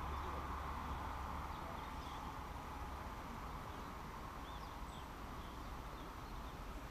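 Quiet outdoor ambience: a steady hiss with a low rumble beneath it, and a few faint bird chirps a couple of seconds in.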